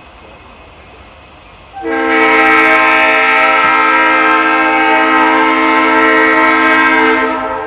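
Multi-note air horn of an approaching EMD E8 passenger locomotive, one long steady blast that comes in suddenly about two seconds in. Near the end it drops to a quieter level while still sounding.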